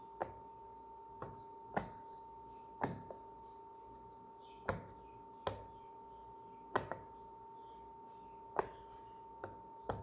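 Round silicone push-pop fidget toy (poppet) having its bubbles pressed one by one from its quiet side: about a dozen short pops at uneven intervals.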